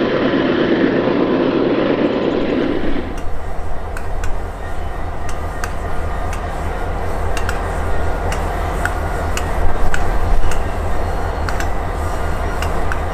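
Diesel locomotives. For the first three seconds an approaching locomotive gives a loud, even rumble. It then changes to Canadian Pacific diesel locomotives rolling slowly past, with a steady low engine hum and many short clicks and brief squeaks from wheels on rail.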